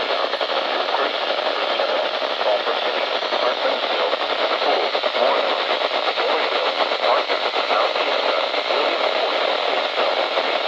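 Steady radio static: a constant hiss from a radio receiver with no program audio coming through, confined to the middle of the range with no deep bass or high treble.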